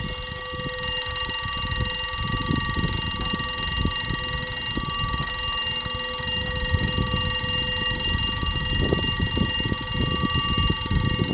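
Wind buffeting the microphone: an irregular, gusty low rumble. Over it runs a steady high ringing of several tones, most of which cut off suddenly near the end.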